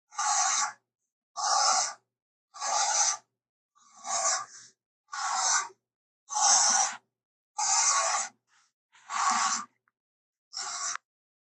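A person imitating bear sounds: a run of nine breathy, rasping huffs, about one a second, each short.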